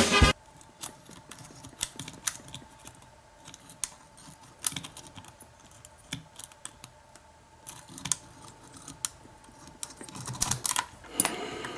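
Metal lock picks clicking and scraping inside a pin-tumbler lock cylinder as the pins are worked, in scattered light ticks with a busier cluster near the end.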